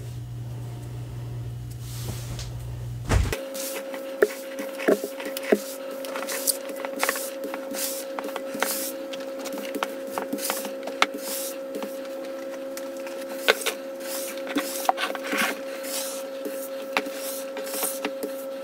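Crushed gym chalk powder swept and wiped across a granite countertop: irregular scratchy rubbing strokes, some sharper, over a steady two-pitch hum. A low rumble without strokes comes first, cutting off about three seconds in.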